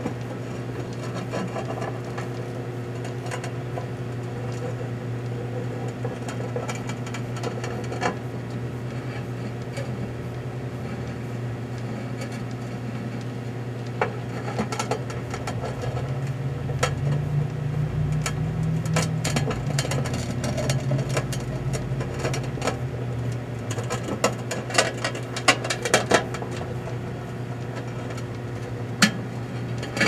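Microwave oven running with a steady hum while golf balls heat inside, the hum swelling louder for several seconds midway. Sharp pops and clicks from the heating golf balls come now and then, bunched in a quick run about three-quarters of the way through and once more near the end.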